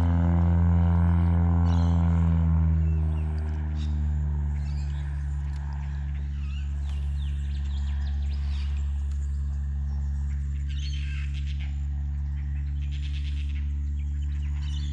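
Birds chirping now and then over a steady low hum that eases off a little after the first couple of seconds.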